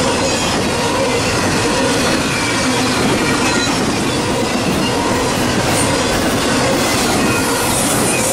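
Norfolk Southern double-stack intermodal freight train rolling steadily past, a loud, even rumble of well-car wheels on rail with thin steady ringing tones over it.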